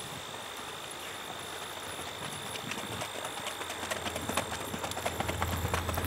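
Hoofbeats of a racking stallion singlefooting along a dirt track: quick, even four-beat footfalls that grow louder from about halfway in as the horse comes nearer.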